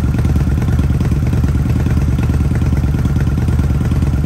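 Kawasaki Vulcan 900's liquid-cooled V-twin engine idling steadily with a fast, even beat.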